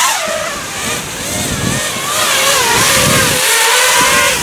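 Racing quadcopter's four Racerstar BR2205 2600KV brushless motors on a 4S battery, whining, the pitch rising and falling as the throttle changes.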